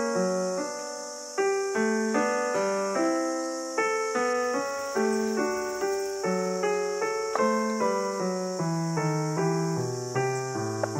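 Background piano music: a gentle melody of struck notes, each fading away, about two notes a second.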